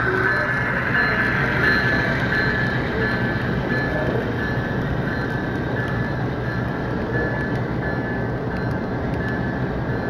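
HO scale model freight train rolling past on the layout track: a steady rumble of the wheels and locomotive motors, with a high whine running through it.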